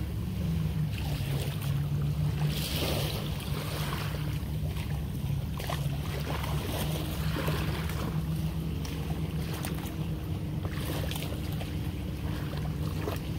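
Wind rumbling on the microphone with small waves lapping at the shore, over a low steady hum.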